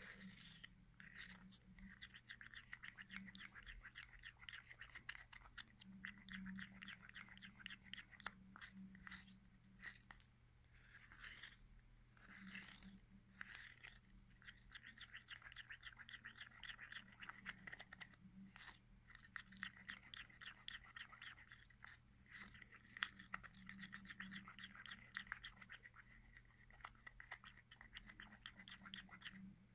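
Wooden stir stick scraping and ticking fast against the sides and bottom of a clear mixing cup as epoxy resin and hardener are stirred together, faint and almost continuous. It is the mixing stage, kept up until the milky strands in the resin clear.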